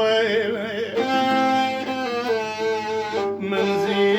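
An Arabic song: a male voice sings the last word of a line, then a bowed violin melody carries on with held notes.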